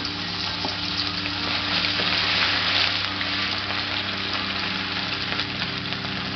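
Crushed ginger and garlic frying in hot coconut oil: a steady sizzle with a few small crackles.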